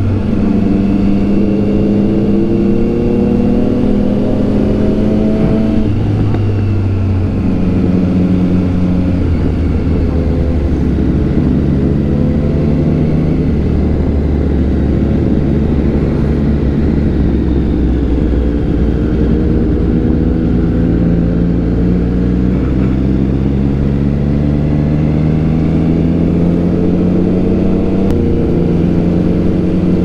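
Motorcycle engine under way, heard from the bike itself, its pitch climbing and dropping back as it shifts gear, with a clear drop about six seconds in. Steady wind and road rush underneath.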